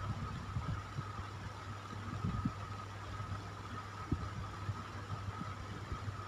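Electric fan running steadily: an even rush of air over a low motor hum and a thin steady whine, with soft irregular low thumps of air buffeting.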